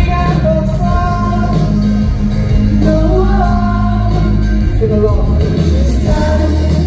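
Live rock band playing, with a male lead singer holding long sung notes over guitar and a steady low band sound, heard loud in a large hall.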